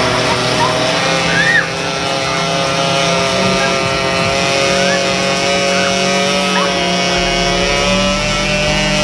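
Coin-operated novelty chair ride running, with a loud, steady electric buzz and drone of several held tones. Short high squeals from the rider rise and fall over it a few times.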